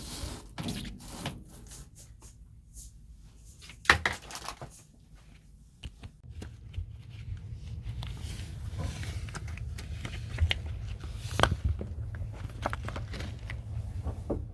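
Handling noises: scattered clicks, knocks and rustles, with one sharp knock about four seconds in. From about halfway a steady low hum runs underneath.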